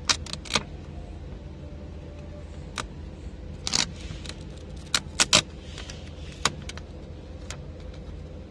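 Paper template sheets crackling and crinkling in the hands as they are shifted and pressed into alignment: a scattering of sharp crackles, loudest in a cluster about five seconds in, over a low steady hum.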